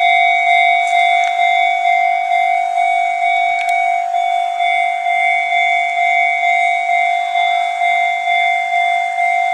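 Japanese railway level crossing alarm ringing: a loud electronic bell tone struck over and over, a little over twice a second.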